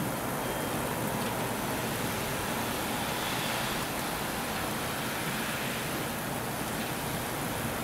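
Steady, even rumble and hiss of a four-car KiHa 47 / KiHa 147 diesel railcar set approaching slowly in the distance.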